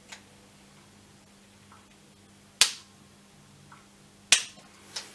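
Spring-loaded Activator adjusting instrument firing twice, two sharp clicks about a second and a half apart, with a fainter click near the end: the chiropractor delivering the adjustment to the patient's L4 vertebra.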